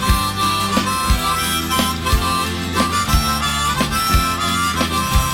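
Instrumental band music led by a harmonica playing long held notes over a bass line and a steady beat of about two drum hits a second.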